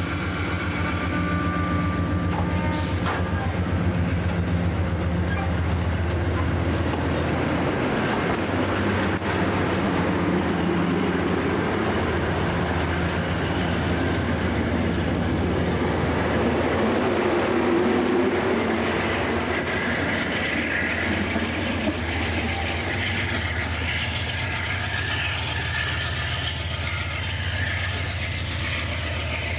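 Amtrak passenger coaches rolling past as the train pulls out of the station: steady wheel-on-rail rumble with light clicking over the rail joints, under a constant low hum. The sound eases a little toward the end as the train moves away.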